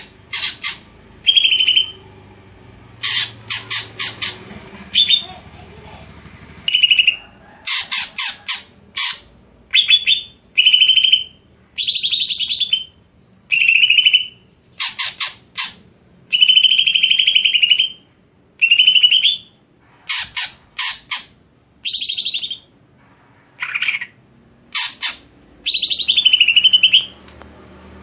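Cucak ijo (green leafbird) singing loudly in repeated phrases of a second or two with short pauses between. Each phrase mixes rapid runs of short, clicking strokes with longer held notes.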